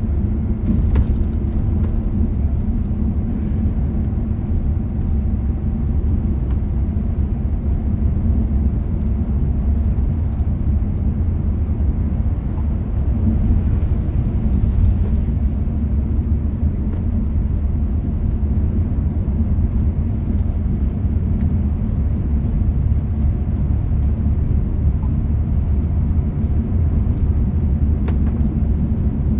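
Steady rumble of a car driving on a road: engine and tyre noise, unchanging throughout.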